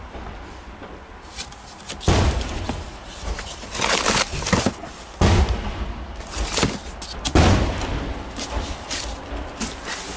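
A series of sudden heavy bangs, about two to three seconds apart, each trailing off into a second or so of rustling noise.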